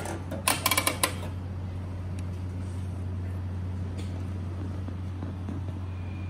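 A quick run of plastic clicks and knocks from a capsule (gacha) vending machine in the first second, as the capsule settles in the chute, then a steady low hum with a faint click about four seconds in, as the capsule is taken out.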